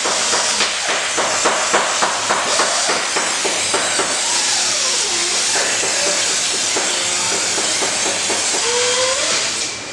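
Compressed-air blow gun running in a steady loud hiss as it blows loose foam dust off a fiberglass boat mold, with light ticks about two or three a second in the first few seconds and a faint wavering whistle later on.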